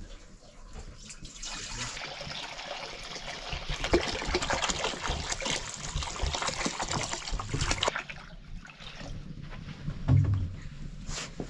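Water poured from a plastic jerry can into a metal wok, splashing steadily for about six seconds and loudest toward the end of the pour, before it stops. A single dull thump follows near the end.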